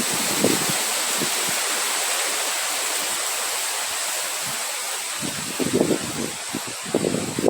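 Wind blowing as a steady hiss, with gusts buffeting the microphone as irregular low rumbles over the last two seconds.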